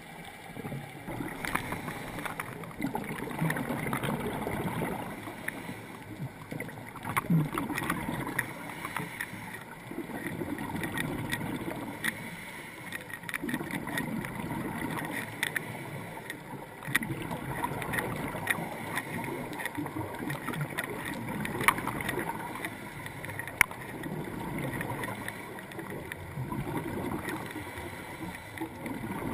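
Scuba breathing through a regulator underwater: rounds of exhaled bubbles gurgling every few seconds, with scattered sharp clicks.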